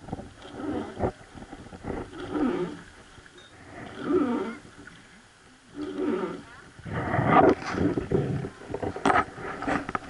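Water sloshing and splashing against the hull of a wooden river boat under way, in rough surges every second or two, with sharper splashes in the second half.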